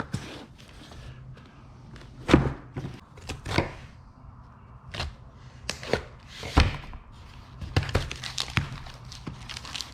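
Objects being handled and set down while unpacking a box: a string of irregular knocks and thunks, the loudest about two and a half and six and a half seconds in.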